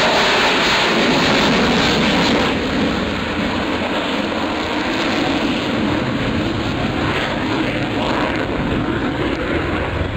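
F-22 Raptor's twin Pratt & Whitney F119 turbofan jet engines running loud as the jet flies past, a dense, steady rush of jet noise that eases slightly after about two and a half seconds.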